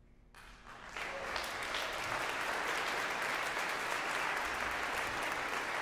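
Audience applauding, beginning a moment after the organ music ends and building within about a second to steady clapping.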